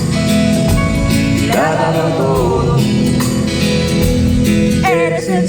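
Live band playing the intro of a romantic ballad: sustained low accompaniment under a melody line that slides between notes.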